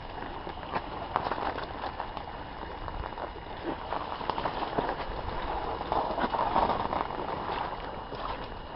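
Footsteps and rustling as someone walks through brambles and rough, wet grass, with irregular small crackles and a steady rushing noise of wind and handling on the microphone.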